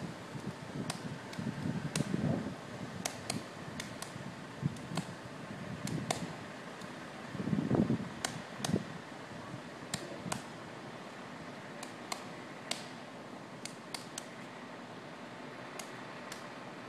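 Shorted power line crackling: irregular sharp snaps and ticks over a steady hiss. A low rumble comes about two seconds in and again, louder, near eight seconds.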